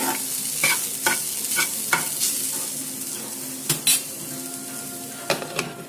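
Grated beetroot sizzling in ghee in a nonstick frying pan while a metal spoon stirs it, scraping the pan about twice a second. The beetroot is being cooked down to soften it, and the sizzle gradually fades.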